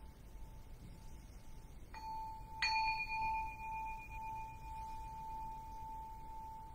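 Large Japanese bowl bell (keisu) struck twice: a light stroke about two seconds in, then a harder one just after. Each rings with a clear steady tone that fades slowly, and a faint ring from an earlier strike is still sounding at the start.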